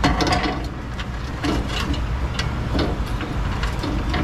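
Tubular steel underbody guard clanking and knocking against a Hummer H2's frame as it is held up and worked into place: a quick clatter of knocks at the start, then single knocks every half second or so, over a steady low hum.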